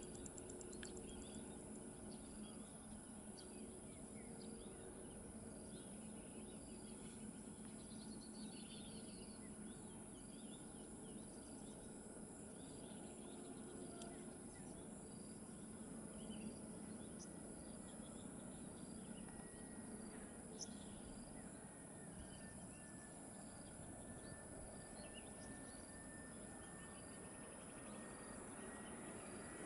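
Faint outdoor ambience: insects chirping and trilling steadily, with scattered short bird chirps. A faint, thin, high whine joins about two-thirds of the way through.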